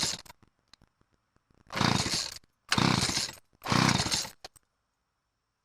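McCulloch 3516 two-stroke chainsaw being pull-started cold after priming: the end of one pull, then three hard pulls on the starter cord about a second apart, each turning the engine over briefly before it stops.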